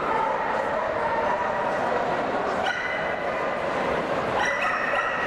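Dogs whining and yipping over the steady hubbub of a large, crowded show hall, with two sharper high cries, one about two and a half seconds in and one near the end.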